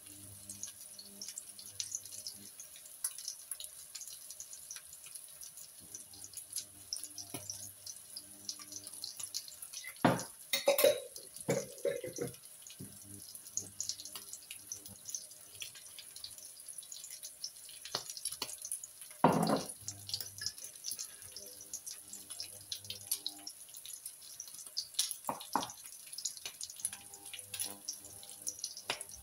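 Beef patties sizzling in a frying pan, a steady fine crackle of fat. A few louder knocks of dishes being handled break in about a third and two-thirds of the way through.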